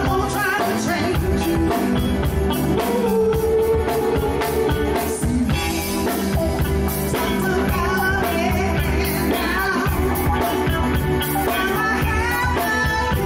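Live soul band playing, with drums keeping a steady beat under keyboards and a melody line that bends up and down on top.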